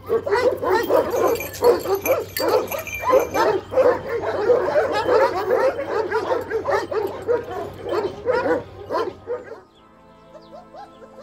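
Several Kangal shepherd dogs barking over one another, several barks a second. The barking stops near the end, leaving soft background music.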